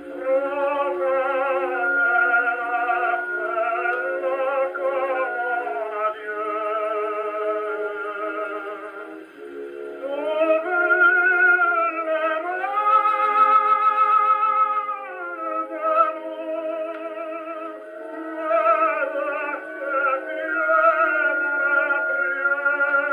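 A 1923 Brunswick 78 rpm record playing on a Columbia 113a portable wind-up gramophone: a tenor singing with accompaniment, thin-sounding with no deep bass. About ten seconds in the voice swells to a long held note with wide vibrato.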